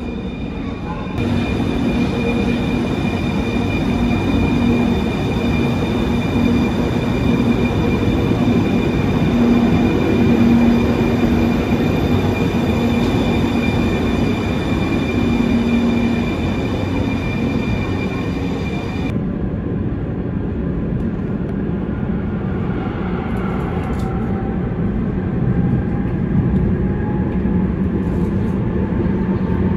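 Alstom RegioCitadis tram running through an underground station: a steady rumble with a constant high electrical whine. After a cut, a tram's interior rumble on the move through a tunnel, with a fainter motor whine that rises and falls in pitch.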